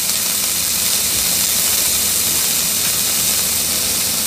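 Diced smoked pancetta sizzling steadily in a hot non-stick frying pan on medium heat.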